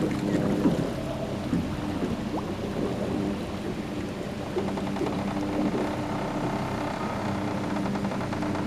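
Engine of a small sightseeing boat running steadily under way, a constant hum over the rush of water along the hull.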